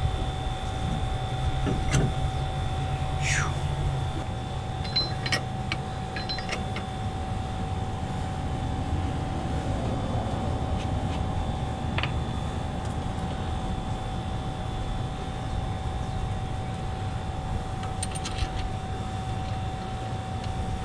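A steady machine hum with a constant whine, over which come a few light clicks and knocks, one with a short falling squeak about three seconds in.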